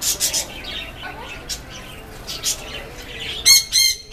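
Green-cheeked conure calling: scratchy, noisy sounds early on, then three short, shrill squawks in quick succession near the end.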